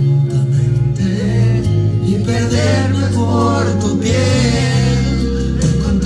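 Music with a singing voice over held bass notes that change about once a second.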